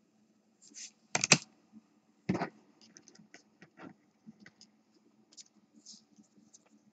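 Trading cards and a rigid plastic card holder handled on a tabletop: two sharp clicks about one and two seconds in, then a run of light ticks and rustles as the stack of cards is sorted.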